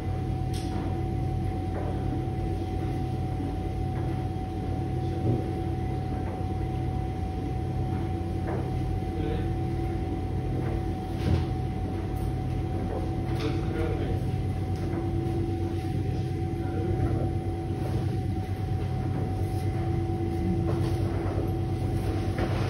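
Electrolux W4250S front-loading washing machine running in its prewash, the drum motor turning a duvet load. It gives a steady whine over a regular low pulsing, with a few light knocks from the tumbling load.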